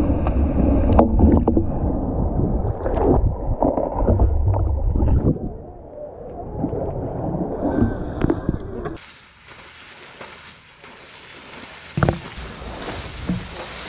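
Asian elephant splashing through pool water: loud churning, gurgling water with a low rumble on the microphone. About nine seconds in it changes to a thinner hiss, and near the end there is a sharp smack as flung mud hits the camera.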